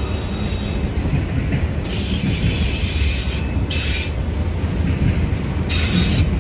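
Freight train of autorack cars rolling past with a steady low rumble of wheels on rail. Spells of high-pitched wheel screech come in about two seconds in, briefly near four seconds, and again near the end.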